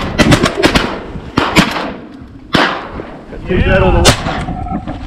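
Shotguns firing at ducks: a quick volley of several shots in the first second, then single shots at intervals, over wind rumble on the microphone. A short wavering call comes shortly before the last shot.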